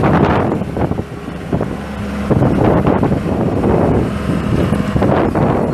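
John Deere 120C excavator's four-cylinder turbo diesel running, with steady low tones that fade in and out, under gusting wind noise on the microphone.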